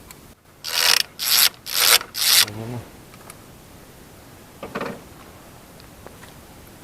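Four quick rubbing or scraping strokes, about half a second apart, then a fainter one near five seconds in.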